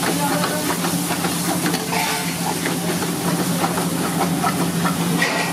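Chicken in masala gravy sizzling in a hot kadai while a steel ladle stirs and scrapes through it, with scattered clicks of the ladle against the pan. A steady low hum runs underneath.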